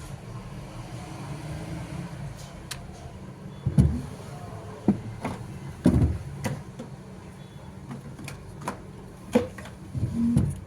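A steady low hum with a series of irregular sharp clicks and knocks, the heaviest about four and six seconds in.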